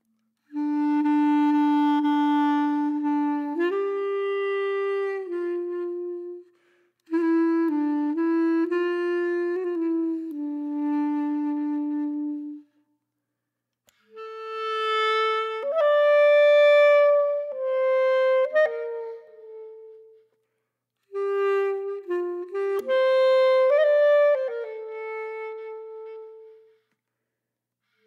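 A solo reed-like wind instrument playing a slow melody in four phrases, each a few seconds long, with short silences between them.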